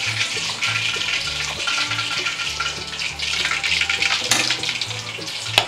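Chicken 65 deep-frying in hot oil: a steady sizzling hiss, with a couple of sharp clicks near the end.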